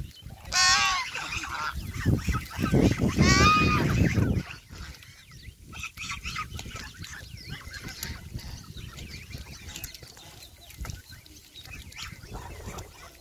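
A flock of domestic geese honking: one loud call about half a second in and another around three and a half seconds in, over a loud low rumble. Then softer scattered clicks and splashes follow as the birds dabble in shallow water.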